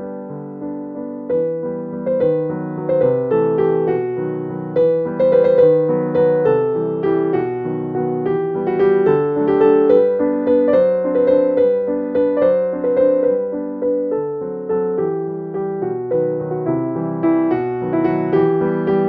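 Background music, a piano melody of struck notes played at an easy pace.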